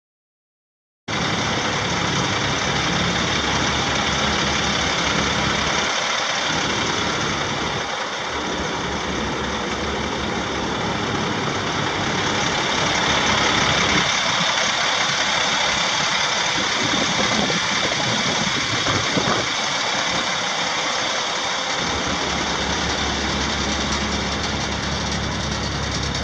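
International DT530 8.7-litre inline-six diesel engine of a dump truck running steadily, cutting in abruptly about a second in.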